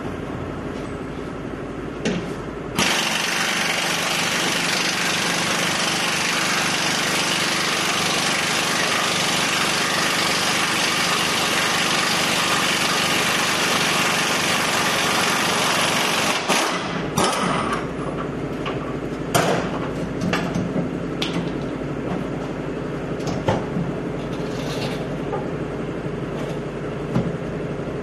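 Pneumatic impact wrench running in one long steady burst of about 14 seconds, starting sharply near 3 seconds in, as the torsion bar bolts are backed out. After it stops, a run of sharp metal knocks and clanks follows as the parts are worked free.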